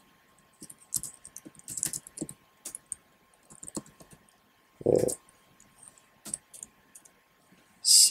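Typing on a computer keyboard: irregular, separate key clicks, with a short low sound about five seconds in.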